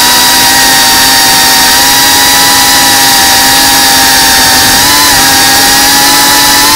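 FPV racing quadcopter's electric motors whining at a nearly steady pitch as the drone lifts off and climbs, with a brief small wobble in pitch about five seconds in.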